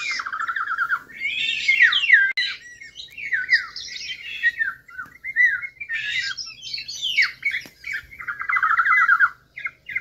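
Eurasian golden oriole calls played from an electronic bird caller as a hunting lure: harsh squawking calls and short sliding whistles, with a fast buzzing trill at the start and again near the end.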